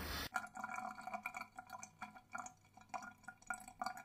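Faint, irregular water drops plinking, several a second.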